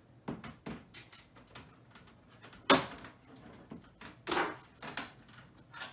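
Handling of an Amiga 500's plastic case while its case screws are taken out: scattered small clicks and knocks, with a sharp loud knock near the middle and another loud knock a little later.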